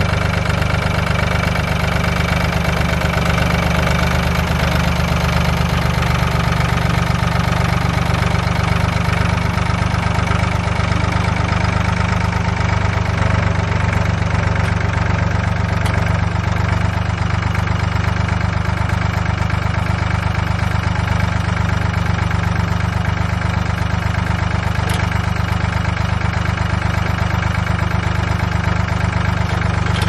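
Ford farm tractor's engine running steadily while it drives a post-hole auger.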